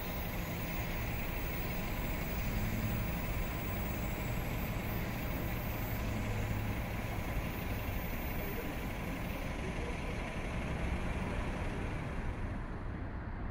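Stadler FLIRT diesel-electric train's engine running steadily in the distance, a low hum under a wash of noise. The higher part of the sound fades near the end.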